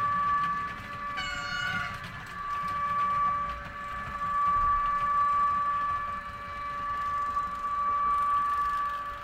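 HO-scale model train running on the layout: a steady high-pitched motor whine over the rumble of wheels on track, swelling and fading as it passes. About a second in there is a short horn toot lasting under a second.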